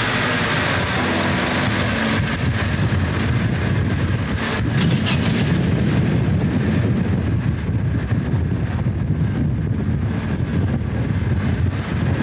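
Van's engine and road noise while driving slowly through a city street: a steady low hum that turns into a rougher rumble about two seconds in.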